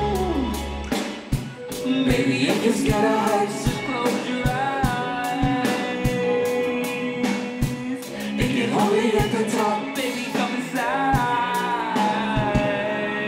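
Live rock-style band music with a singing voice over drums and guitar. A deep bass drops out about a second in.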